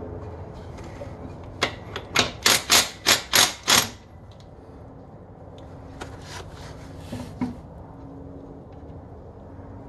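A quick run of about seven sharp knocks, roughly three a second, from work on the side bearing adjusting nut of a 14-bolt rear axle while setting ring-and-pinion backlash; a few fainter clicks follow a few seconds later.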